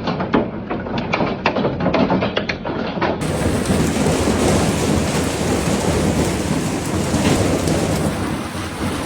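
Hailstones striking hard surfaces in a rapid, irregular clatter of sharp hits. About three seconds in it cuts to a dense, steady downpour of rain and hail.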